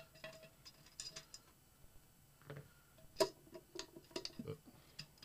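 Light, scattered metallic clicks and taps as an Allen wrench and hands work the screws on the lid of a Helium miner's ribbed metal enclosure, with one sharper click about three seconds in.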